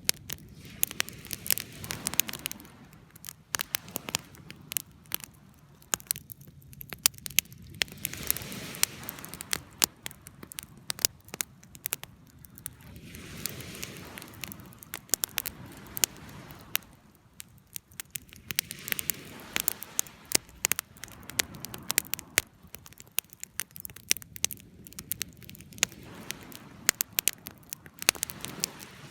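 Campfire crackling and popping, with many sharp snaps, over a steady hiss of surf that swells and fades every five or six seconds.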